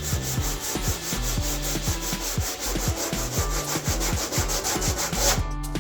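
Hand sanding of a primed car body panel with a sanding block: rhythmic back-and-forth strokes, about four a second, that stop about five seconds in.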